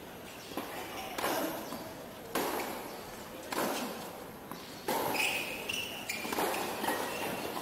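Tennis ball struck back and forth with racquets in a doubles rally on an outdoor hard court: a crisp hit about every second or so, each ringing briefly.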